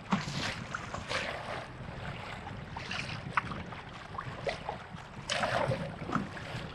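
Kayak paddle strokes splashing in choppy lake water, a splash every second or two, over a steady rumble of wind on the microphone.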